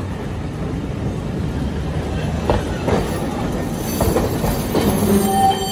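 Nagasaki streetcar passing close by: a continuous low rumble and clatter of its steel wheels on the street rails, with several sharp clicks in the second half and a short high tone near the end.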